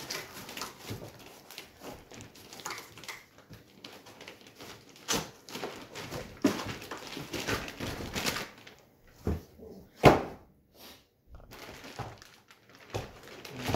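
Cardboard packaging and plastic wrap being handled: irregular rustling, scraping and knocks as a cardboard insert and plastic-wrapped shock absorbers are pulled from a long box, with one sharp thump about ten seconds in.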